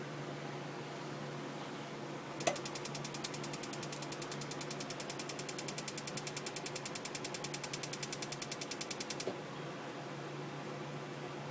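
Gas water heater's spark igniter ticking rapidly, about ten clicks a second for some seven seconds, beginning and ending with a sharper click, with no burner catching after it. A steady low hum lies underneath.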